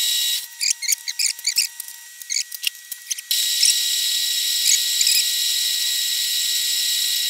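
Metal lathe running with a steady high whine while a twist drill in the tailstock chuck bores the centre hole in the spinning workpiece. The bit gives many short squeaks and chirps as it cuts, mostly in the first three seconds, after which the whine comes back steadily.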